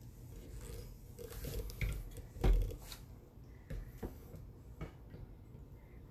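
Silicone spatula scraping thick, buttery cake dough out of a plastic chopper bowl: soft squishing and scraping with a few light clicks, and one dull knock about two and a half seconds in.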